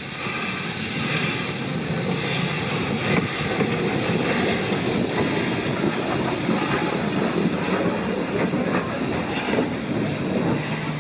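Steam train hauled by Rx-class locomotive RX 207 running along the line. The wheels and carriages clatter on the rails in a steady, loud rumble that builds about a second in.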